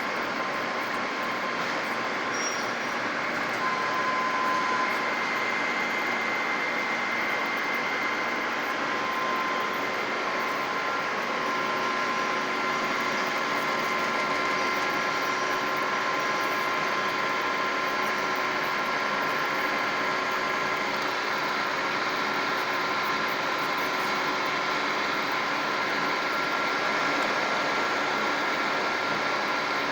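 Holzmann ED 1000 metal lathe running at about 770 rpm, turning a long, thin steel workpiece: a steady machine noise with faint high whining tones that come and go.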